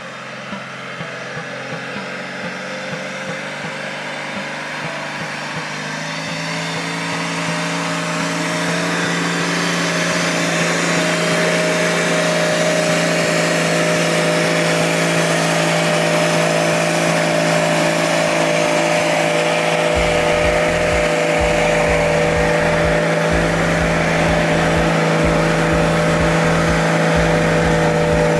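An off-road 4x4's engine ticking over at first, then climbing over several seconds to high revs and holding there steadily, as under heavy load. A low, uneven rumble joins about two-thirds of the way through.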